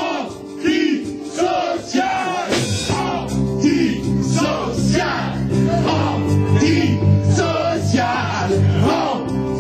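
Men singing a rock song into a handheld microphone over amplified rock backing. A steady low bass part comes in about three seconds in.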